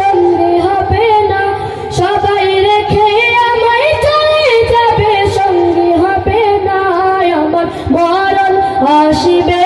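A boy singing a Bengali Islamic gojol into a microphone, drawing out long held notes that waver and slide between pitches, with no clear words.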